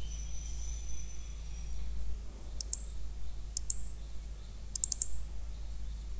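Computer mouse button clicks in quick double-click pairs, about two and a half seconds in and again a second later, then a quick run of three or four clicks about five seconds in, over a steady low electrical hum.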